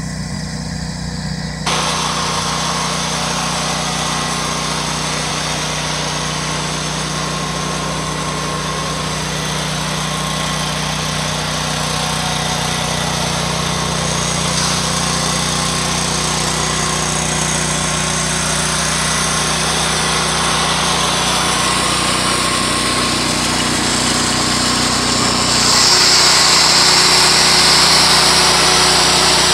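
John Deere 345 garden tractor's 18 HP Kawasaki liquid-cooled V-twin engine running steadily. It grows louder and hissier about two seconds in and again near the end, where it is heard up close with the hood raised.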